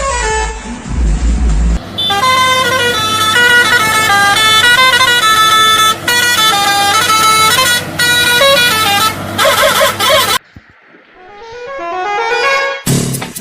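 Truck musical horn playing a tune of steady, stepped notes for about eight seconds. After a short break, a quieter rising sweep follows near the end.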